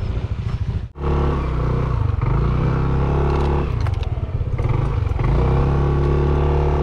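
Motorcycle engine idling, then revved up about a second in and held at high revs for several seconds, easing off briefly midway before revving again, as the bike is pushed through soft ground.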